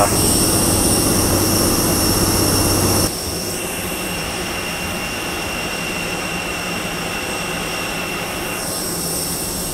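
Steady whine and hum of an airliner on the ground, its jet engines or auxiliary power unit running while passengers board, with several thin high tones over the noise. The level drops abruptly about three seconds in and then holds steady.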